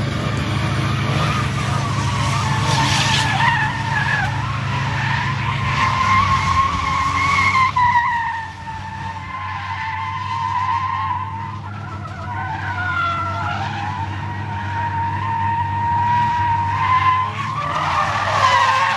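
Mercedes-Benz S600 drifting, its rear tyres squealing in a long, wavering slide over the low run of its V12 engine. The engine note drops back about eight seconds in while the tyre squeal carries on.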